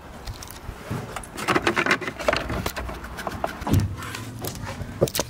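Hands working on a plastic car dashboard: a run of irregular knocks, scrapes and rubbing, the sharpest knocks about two seconds in, near four seconds, and just before the end.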